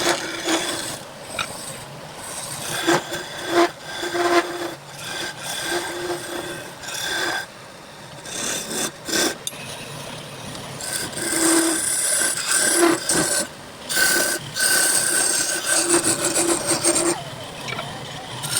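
A turning tool cutting wood spinning on a lathe: a rasping scrape in short, uneven passes, with a faint ringing tone under some cuts. The cuts become longer and almost continuous in the second half.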